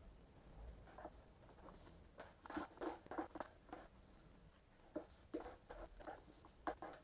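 Chopsticks scraping and clicking against a Peyoung Gigamax cup-yakisoba plastic tray while the noodles are stirred and picked up: a run of short, irregular scrapes and taps, busiest a couple of seconds in and again near the end.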